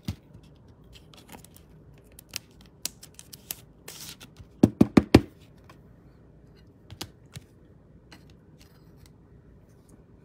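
Trading cards and a rigid plastic top loader being handled on a tabletop: scattered light clicks and rustles, with a quick run of four sharp clicks about halfway through.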